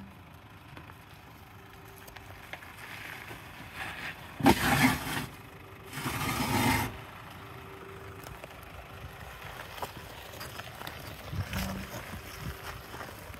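A 4x4 vehicle running over a track with a steady low rumble and small knocks, broken by two loud bursts of rushing noise about a second apart near the middle.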